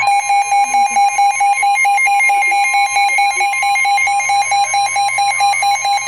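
Emergency alert attention tone: a loud, harsh two-tone alarm, a steady higher tone over a rapidly pulsing lower one, announcing an emergency warning broadcast.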